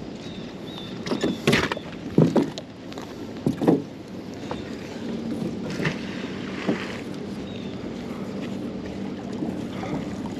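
Magnet-fishing rope being hauled up hand over hand in a small boat, with several sharp knocks and thumps in the first four seconds and another around the middle. Under them is a steady wash of wind and water, and a faint low hum comes in about halfway.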